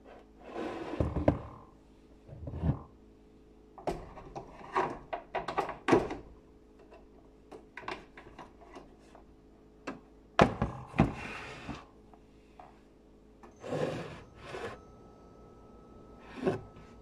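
Kitchen counter clatter: irregular knocks, thuds and scrapes of an electric kettle, a mug and other things being handled and set down, in several separate bursts.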